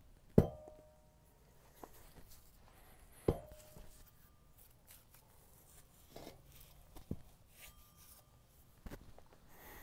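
Steel clanks of a mini excavator's idler assembly, the idler wheel and its heavy recoil spring, being worked out of the track frame by hand: two sharp ringing metal clanks about half a second in and a little after three seconds, then a few lighter knocks as the assembly is set down.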